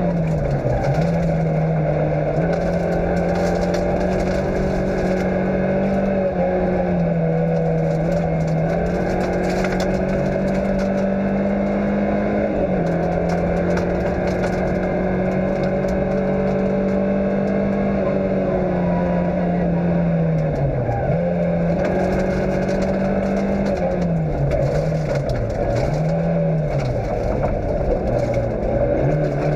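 Fiat Cinquecento rally car's engine running hard at high revs on a gravel stage, heard from inside the car. The revs dip and climb again several times as the driver shifts or lifts, most often in the last third, with gravel crackling and scraping under the car throughout.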